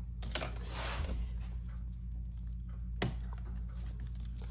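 Light clicks and a brief scraping rustle of hands working the laptop's small cooling fan loose, with one sharp click about three seconds in, over a steady low hum.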